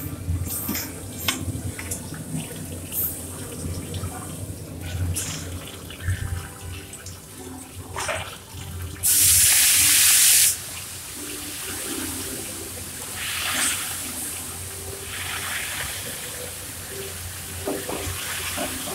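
Kitchen work sounds: scattered clinks and knocks of metal bowls and utensils over a steady low hum. About halfway through, a loud hissing rush starts suddenly and cuts off a second and a half later, followed by two fainter hisses.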